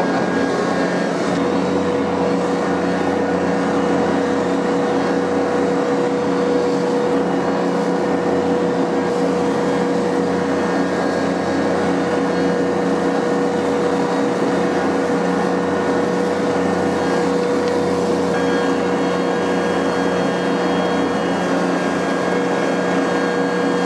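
Ventrac 4520 compact tractor's three-cylinder Kubota engine running steadily at working speed with the Tough Cut mower deck spinning, cutting through tall brush. An even, unchanging drone with a constant tone held throughout.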